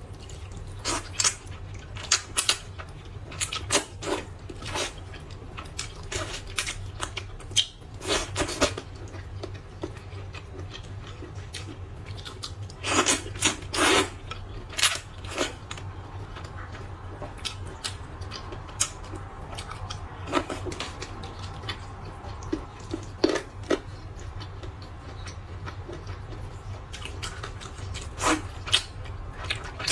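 Eating a bowl of spicy rice noodles: irregular clicks of utensils against the bowl and chewing and slurping noises, with a few longer bursts about halfway through. A steady low hum runs underneath.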